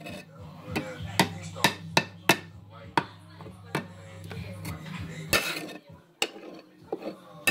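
Knocks and scrapes of a utensil on a skillet as burnt burger residue is worked off the cooking surface, about ten sharp, irregular knocks. A low hum under them stops about five seconds in.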